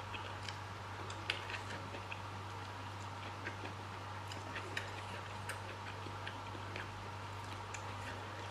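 Quiet eating sounds: irregular small clicks and smacks from chewing and from picking boiled fish apart by hand on a plate, over a steady low hum.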